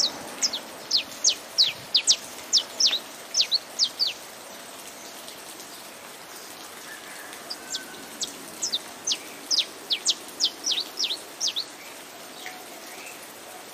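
Saffron finch singing two bouts of quick, sharply falling high notes, the first lasting about four seconds and the second starting about seven and a half seconds in, over a steady hiss of rain.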